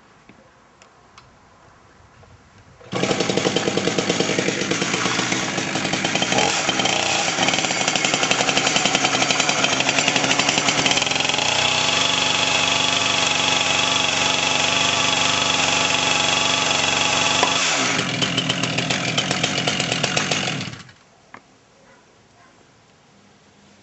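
Two-stroke chainsaw comes in abruptly about three seconds in and runs at high revs, with a drop in pitch near the end, then cuts off sharply. A single faint click follows shortly after.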